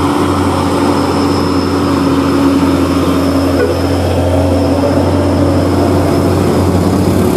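Diesel engine of an older Mercedes-Benz tour bus running at a steady, unchanging pitch as the bus approaches, mixed with motorcycles and small vehicles passing close by.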